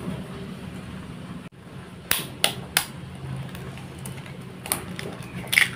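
Eggs cracked by tapping the shell against a kitchen knife blade: sharp taps, three in quick succession about two seconds in and a couple more near the end.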